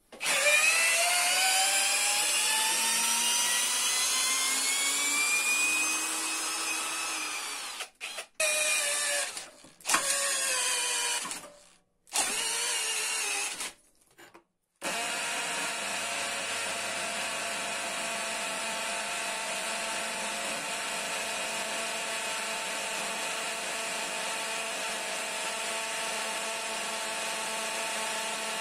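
Parkside Performance PSBSAP 20-Li A1 cordless brushless drill-driver running under load in several bouts. First comes a long run boring a hole saw into wood, its pitch climbing. Then short stop-start runs drive a 10 x 260 mm screw into an oak log, and a steady run in the second half drills an 8 mm hole in brick.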